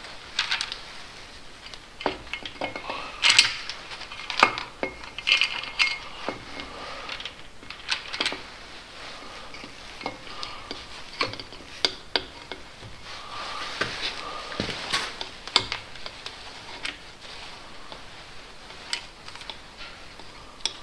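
Metal hand tools and bolts clinking and clicking irregularly against the oil pump and aluminium block while the oil pump's M8 mounting bolts are run in and tightened.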